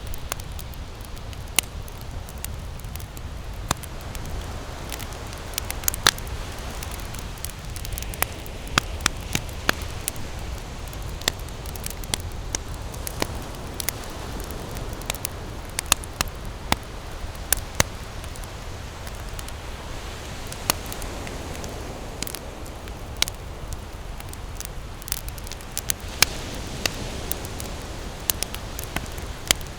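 Wood campfire burning and crackling, with many irregular sharp pops over a steady low rumble.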